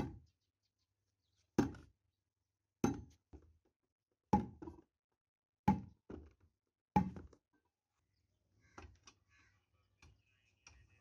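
Heavy knocks of a tool striking wood, about one every 1.3 seconds, several followed by a lighter second knock, during the making of a wooden dhol drum. The strikes stop about eight seconds in, leaving faint light clatter.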